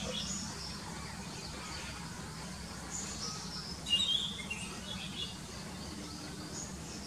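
Orange-headed thrush singing: short, varied high phrases spaced a second or two apart, the loudest about four seconds in, over a steady low hum.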